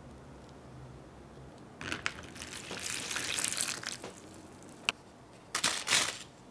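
Plastic zip-top freezer bag crinkling as it is handled and held open, starting about two seconds in and lasting about two seconds. After a single click, there is a short loud rush near the end as granulated sugar is tipped from a glass bowl into the bag.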